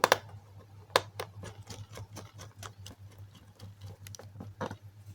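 A small screwdriver driving screws into a laptop's plastic case: a run of light clicks and ticks, several a second, with a few sharper knocks, over a steady low hum.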